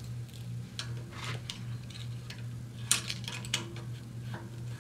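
Light metallic clicks and scrapes of a wrench and feeler gauge on the rocker arm adjusting nut of a Briggs & Stratton single-cylinder OHV engine as the valve lash is set, with a sharper click about three seconds in. A steady low hum runs underneath.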